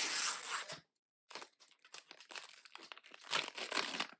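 A toy package's tear strip being ripped down through its wrapping for just under a second, then plastic wrapping crinkling and crackling as the contents are handled.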